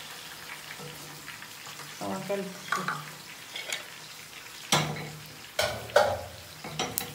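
Sliced brinjals frying in oil in a pan, a steady sizzle, with a few sharp clattering knocks, the loudest about five and six seconds in.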